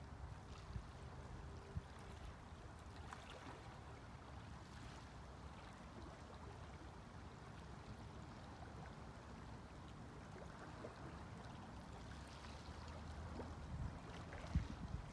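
Lake water lapping gently at a pebble shore, under a low, uneven rumble of wind on the microphone, with a brief bump near the end.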